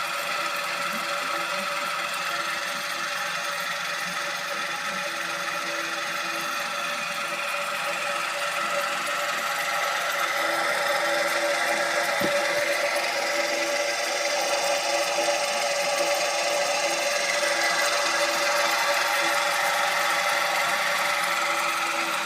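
Kotatsu heater fan running with an abnormal whirring noise made of several steady tones, in a fan worked hard for about ten years. It gets a little louder about halfway through, with a single click around then.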